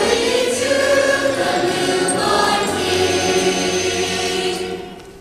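Children's choir singing with instrumental accompaniment, holding long notes; the sound fades away shortly before the end.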